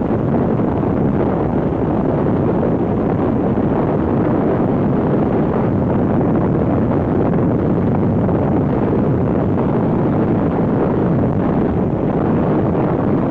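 Strong wind buffeting the camera's microphone: a loud, steady rumbling roar with no break.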